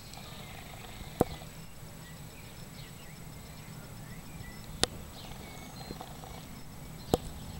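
Outdoor background with faint high chirps and a thin steady high tone, broken by three sharp clicks, about a second, nearly five seconds and about seven seconds in.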